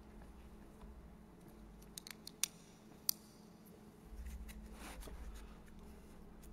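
Quiet room tone with a handful of faint sharp clicks about two to three seconds in, then a low rumble for a second or so.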